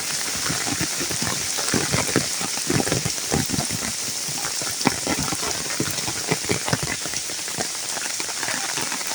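Steady rain falling, a constant hiss with many irregular close drops and splashes tapping through it.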